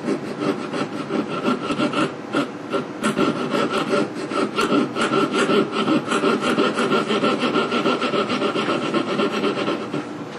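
Jeweler's saw blade, fixed in a wooden block, rasping against a gold bracelet's tongue clasp in rapid, steady back-and-forth strokes. The metal is being cut away to square up the clasp's worn, rounded crease so it bites again.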